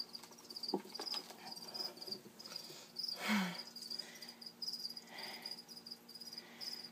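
Cricket chirping steadily, a quick run of short high chirps repeating over and over. About three seconds in there is a brief, louder rush of breathy noise, and there are a couple of faint clicks near the start.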